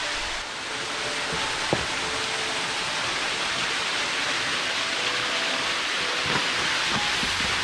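Small mountain waterfall splashing and rushing steadily over rock. One sharp tap comes a little under two seconds in.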